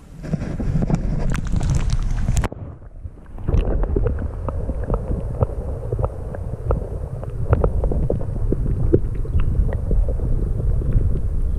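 Shallow lake water sloshing and splashing around a brown trout being slid back in. After a sudden break about three seconds in, the camera is underwater: a dull, muffled low rumble with many small clicks and taps.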